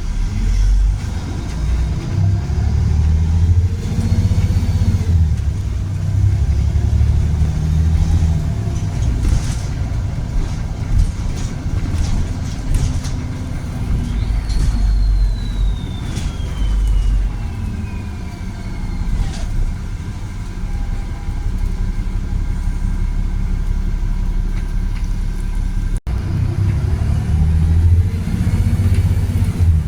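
Volvo B7RLE bus with a Voith automatic gearbox on the move: a steady low diesel rumble with a whine that rises and falls in pitch as it accelerates and shifts, and a high whistle sliding downward about halfway through. The sound breaks off sharply a few seconds before the end, then carries on the same.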